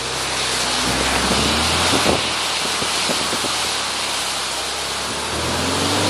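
Dry fallen leaves rustling and crackling in a dense, rain-like hiss as a UAZ Hunter ploughs into a deep drift of them, with the engine running low underneath.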